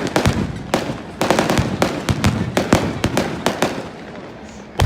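Fireworks going off: a rapid run of sharp cracks and bangs for the first three seconds or so, thinning out, then one loud bang at the very end.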